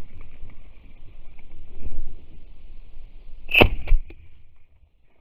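Brushing of footsteps through dry grass stubble, then a single 12-gauge-type shotgun shot about three and a half seconds in, followed at once by a couple of metallic clacks as the semi-automatic action cycles and ejects the spent shell.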